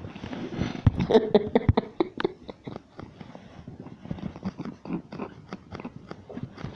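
A rapid, irregular series of soft clicks and taps, several a second, over a faint rustle.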